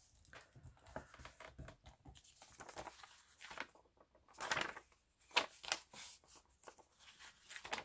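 Paper pages of a small children's book being handled and turned: faint rustling and soft taps, with a few louder rustles about halfway through.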